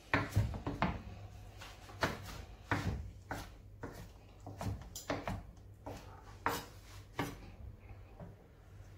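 Kitchen knife cutting tender boiled beef on a wooden cutting board: irregular knocks of the blade against the board, thinning out near the end.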